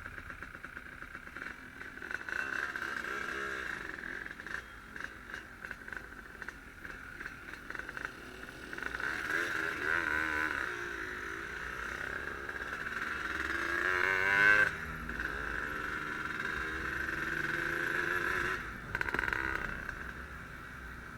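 Yamaha RD135 two-stroke motorcycle engine running under way, its revs rising and falling through the gears. The pitch climbs to a peak about 14 seconds in and then drops sharply.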